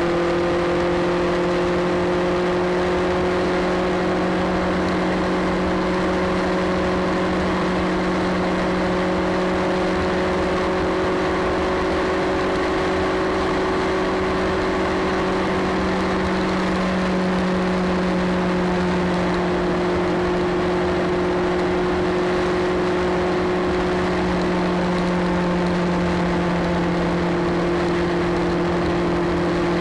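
Motorcycle engine running at a steady cruise, its pitch holding nearly constant, under a steady rush of wind and road noise.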